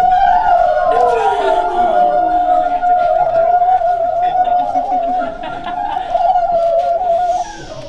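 A long, loud, steady high note that wavers slightly, with a second, lower tone sliding slowly downward beneath it; the note cuts off about seven and a half seconds in.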